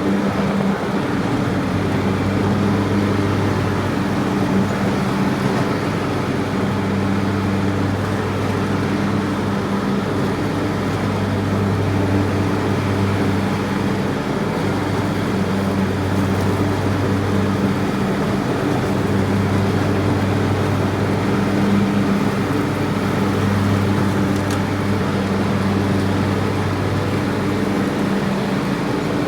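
A steady low mechanical drone with a hum whose lowest note swells and fades every few seconds.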